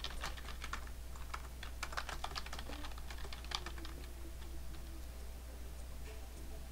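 Typing on a computer keyboard: a quick run of key clicks that stops about four seconds in.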